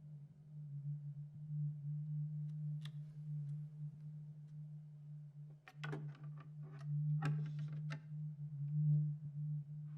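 A low, steady humming drone, like a sustained sine tone, from the film's score or sound design. It is joined by a single click about three seconds in and a quick run of short clicks and rustles between about six and eight seconds.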